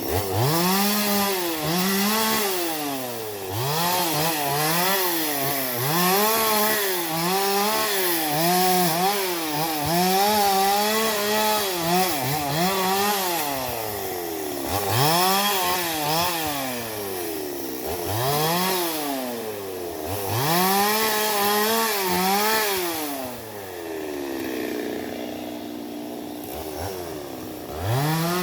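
Two-stroke Stihl chainsaw cutting into a large teak log, its engine revving up and sagging in pitch again and again every second or two as the chain bites into the wood. It eases to a lower, steadier speed for a few seconds near the end, then revs up once more.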